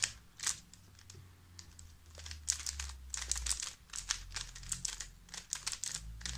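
Magnetic stickerless ShengShou 3x3 speed cube being turned by hand: runs of quick, light plastic clicks as the layers are spun through an algorithm, with a short pause about a second in.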